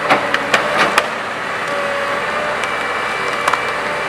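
Excavator engine running steadily, with a quick run of sharp knocks in the first second and two more about three and a half seconds in.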